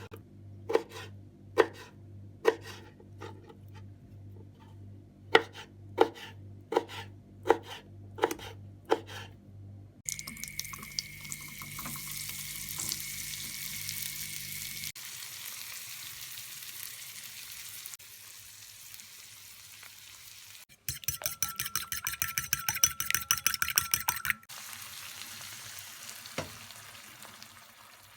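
Kitchen cooking sounds: about a dozen sharp taps of a utensil on a pan or bowl over a low hum, then food sizzling in a hot pan, broken near the end by a few seconds of fast rapid clicking from stirring.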